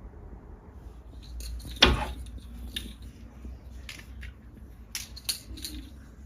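A knock about two seconds in, followed by a handful of short, sharp, irregular clicks and taps over a low rumble.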